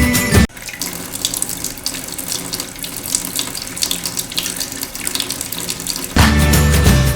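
Water running steadily for about six seconds, starting about half a second in and stopping about a second before the end, with background music before and after it.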